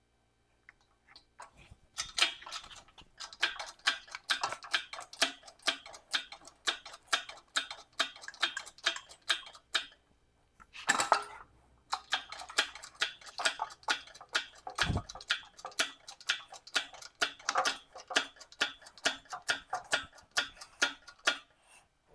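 Ratchet wrench clicking in a steady run, about three clicks a second, with a short pause around ten seconds in. A single dull thump comes a few seconds later.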